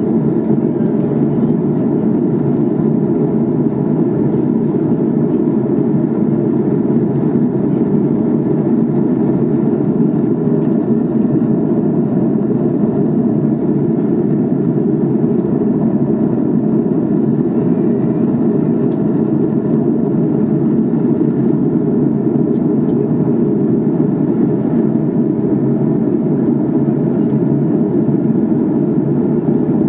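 Steady in-flight cabin noise of an Airbus A300-600R: engine and airflow noise heard as an even low rumble, with faint steady tones above it.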